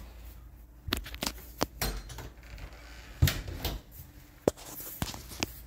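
Footsteps on a ceramic tile floor: a run of irregular sharp clicks and knocks, the loudest a little past the middle.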